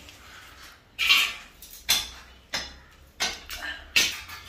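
Thin metal false-ceiling channel strips clinking and rattling as they are handled: about five sharp metallic clinks, a little over half a second apart, starting about a second in.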